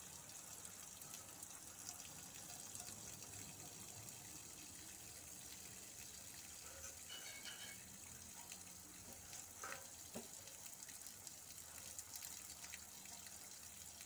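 Backwash water from a sand filter pouring steadily out of a flexible hose and splashing onto dirt: a faint, even rush of water.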